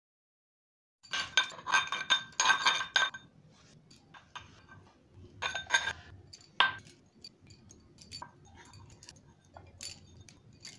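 A spoon mixing food in a glass bowl, clinking rapidly against the glass for about two seconds starting about a second in, then a few more clinks, one sharp clink and scattered light ticks.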